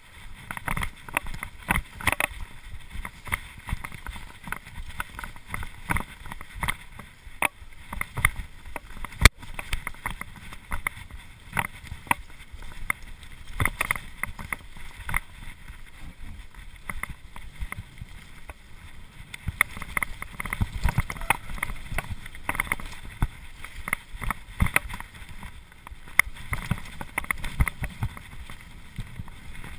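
Cube LTD Pro hardtail mountain bike ridden fast down a rough dirt forest trail: a constant clatter of rattling and knocking from the bike as its tyres run over ruts and roots, with wind rushing over the camera microphone. A single sharp knock about nine seconds in is the loudest hit.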